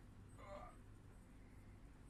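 Near silence: room tone with a low steady hum and one faint, brief sound about half a second in.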